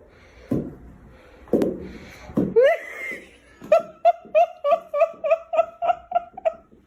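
High-pitched laughter: after a few short sounds and a rising vocal note, a quick, even run of about a dozen 'ha' pulses, roughly four a second, fills the second half.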